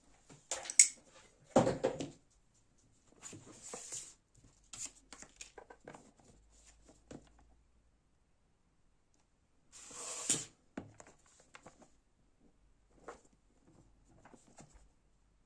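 Packaging being handled and torn open: intermittent rustling and tearing with scattered small clicks, the loudest bursts about 1 to 2 seconds in and about 10 seconds in.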